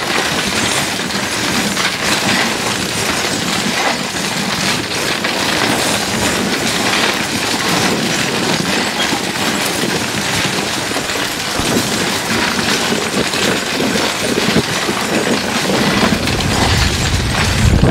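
Harsh noise music in the musique concrète style: a dense, loud wall of crackling, clattering noise spread across all pitches. A deep rumble swells in over the last couple of seconds.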